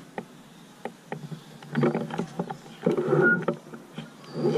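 Futsal pitch sound: players' voices calling out across the pitch in short bursts about two and three seconds in, with scattered sharp clicks and knocks.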